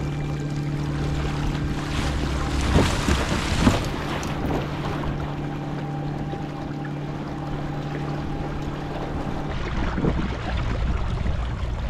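Newport NK180 electric kayak motor running at a steady hum, with water rushing and splashing along the hull and wind on the microphone. The motor hum cuts off near the end, leaving the water and wind.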